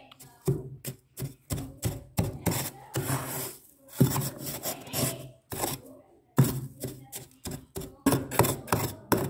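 A big steel spoon scraping and digging into thick, soft freezer frost, in a quick run of short scraping strokes about two to three a second, with a short pause a little past the middle.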